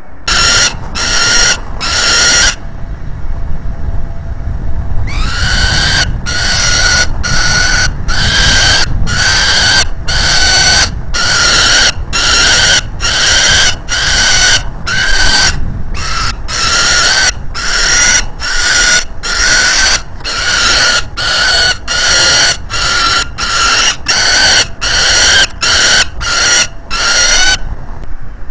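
Peregrine falcon giving harsh, drawn-out calls: three, a pause of about two and a half seconds, then a long run of calls about one a second.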